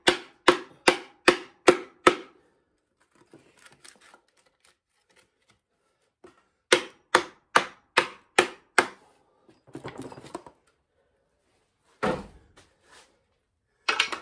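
Two runs of quick, sharp knocks, about two or three a second, as a wooden pole set in the cylinder is pounded to drive a stuck piston down the bore of a 1928 Ford Model A engine. Near the end come a brief scrape, a heavier thud and one last knock.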